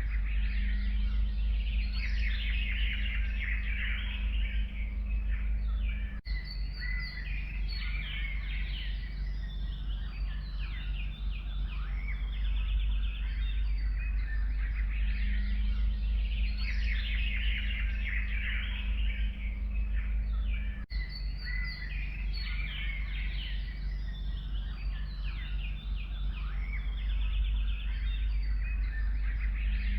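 Many forest birds chirping and singing together in a dense chorus, over a steady low rumble, with two brief dropouts in the sound.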